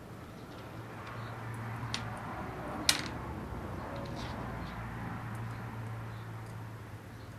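Small parts of a cross slide vise being handled during assembly: one sharp click about three seconds in and a lighter one a second earlier, with a few faint ticks, over a steady low hum.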